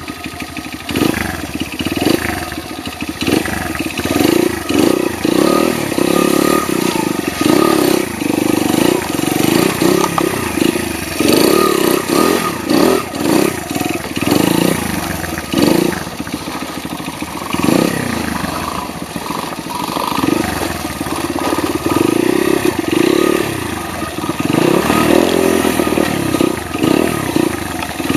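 Small single-cylinder motorcycle engine running under load, its revs rising and falling over and over as the throttle is opened and closed.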